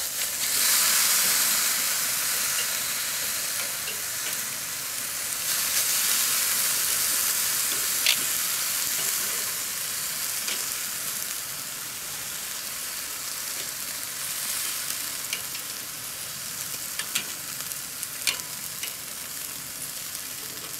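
Steaks and red peppers sizzling over hot charcoal on a Weber kettle grill as they are turned with metal tongs. The sizzle swells right at the start and again about five seconds in, then settles, with a few sharp clicks of the tongs against the grate.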